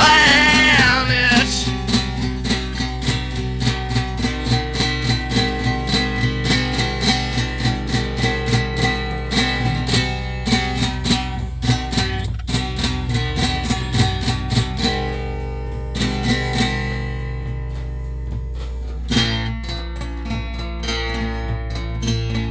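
Instrumental music led by a strummed acoustic guitar, after a sung word held with vibrato in the first second and a half. The strumming thins out about two-thirds of the way through and picks up again shortly after.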